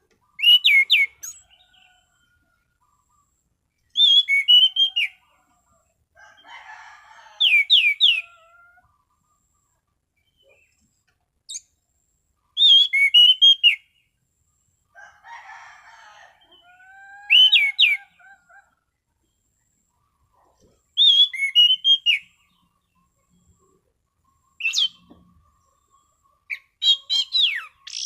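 Orange-banded thrush (anis cendana) singing in full, clear 'ngeplong' style: short phrases of loud, quickly sliding whistled notes repeated about every four seconds, seven phrases in all, with quieter, lower whistles and soft scratchy notes in the gaps.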